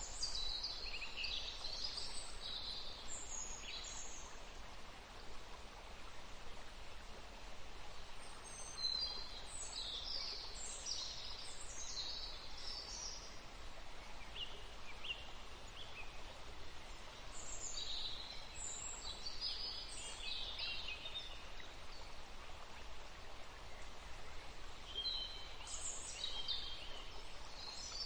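Forest ambience: songbirds singing in short bouts of high chirps and trills every several seconds, over a steady background hiss.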